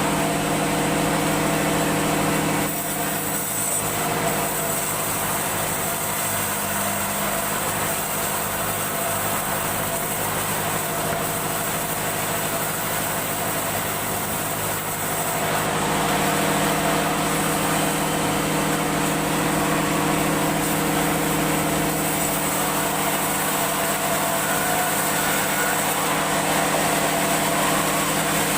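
Engine of a wood-sawing machine running steadily, its tone shifting about three seconds in and again around fifteen seconds in.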